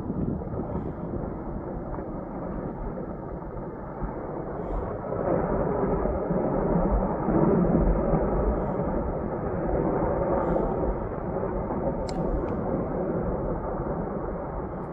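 Snow avalanche tumbling down mountain cliffs: a continuous low rumble that swells in the middle and then eases off.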